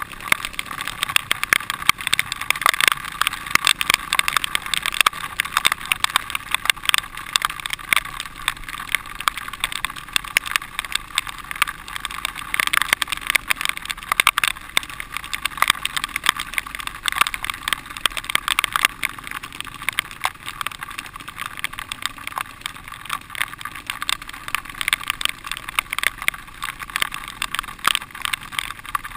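Dirt bike running along a rough trail, heard through a helmet-mounted camera: a steady noisy drone of engine and wind, broken by constant clicks and knocks from the bumps.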